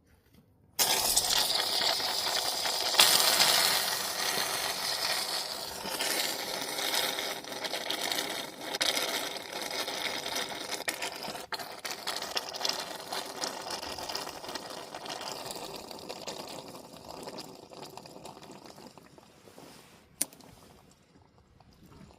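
CTC heat pump giving a sudden loud rush of hissing, rushing noise that starts abruptly and slowly dies away over about twenty seconds, with a sharp click near the end.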